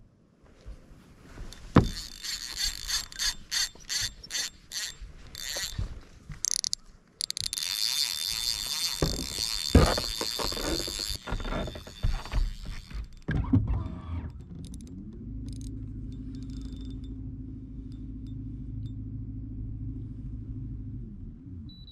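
A fishing reel's drag buzzing in short bursts, then in one long run of about four seconds as a big hooked fish pulls line off the spool. Later comes a steady low hum.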